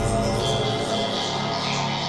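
Intro theme music with sustained pitched tones; its heavy bass drops away right at the start.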